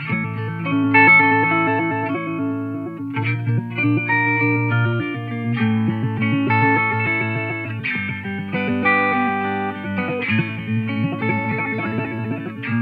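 Electric guitar played through an Old Blood Noise Endeavors Dweller phase repeater/delay pedal. Its modulation is set to a sample-and-hold shape, so the repeated notes jump in steps, like a step filter.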